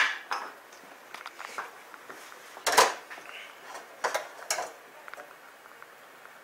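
Metal kitchen clatter as a metal churro press and pans are handled: a few separate sharp knocks and clinks, the loudest a little under three seconds in, two more about a second later, then faint light ticking.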